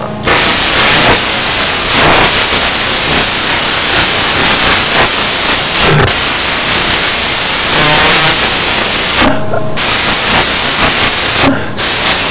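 Loud, steady hissing static noise on the audio, cutting out briefly twice near the end.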